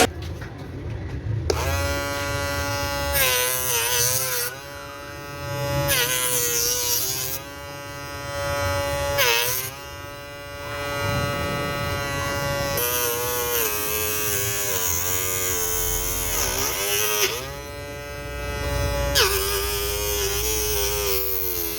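Small electric motor of a homemade table saw running with a high whine that starts about a second and a half in. Its pitch sags several times, each sag with a spell of hiss, as the blade is loaded by cutting.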